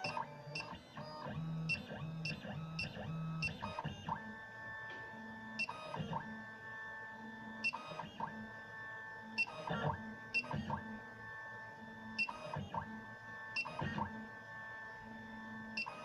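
Fully automatic computerised key cutting machine working through a tubular key cut: its motors whine at steady pitches as the head moves, broken every second or two by sharp clicks and short buzzes. The first few seconds hold a quicker run of short moves.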